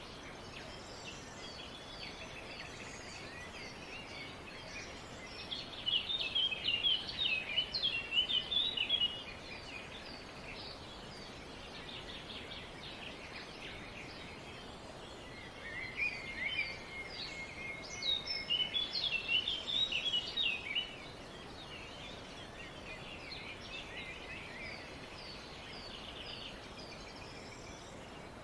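Several small birds chirping and twittering over a steady background hiss, with two louder bursts of rapid, high chirps: one about six seconds in lasting some three seconds, and a longer one from about sixteen to twenty-one seconds.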